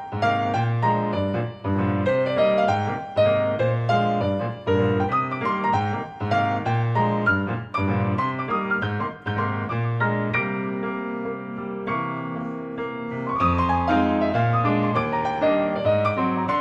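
Background piano music: a steady run of plucked-sounding piano notes over a bass line.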